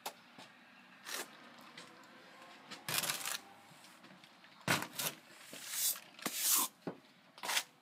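Steel trowel swiping wet stucco basecoat onto foam board: a series of short scraping strokes, the loudest about three seconds in and several more close together in the second half.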